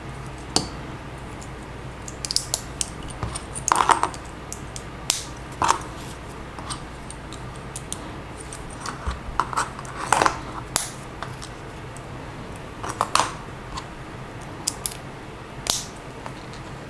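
Lego bricks being handled and pressed together by hand: scattered light plastic clicks and small rattles at irregular intervals, a few louder snaps among them.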